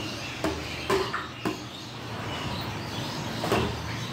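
Steel ladle clinking against a large steel serving platter and a ceramic bowl as paye broth is ladled out: several sharp clinks over a steady background hubbub.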